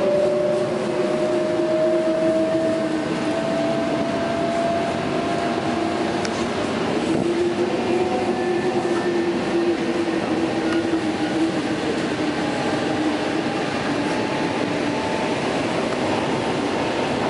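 EP2D electric multiple unit running at speed, heard from inside the passenger car: a steady rumble of wheels on the track with the whine of the electric drive, one tone slowly rising in pitch over the first few seconds while a lower one slowly sinks.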